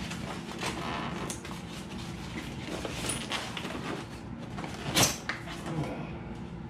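Styrofoam packaging being handled: foam pieces rubbing, scraping and creaking against each other, with scattered knocks and one sharper knock about five seconds in.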